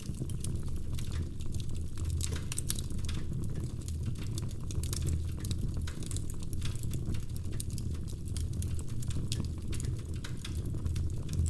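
Wood fire crackling in a fireplace: many irregular sharp pops and snaps over a steady low rumble of the burning.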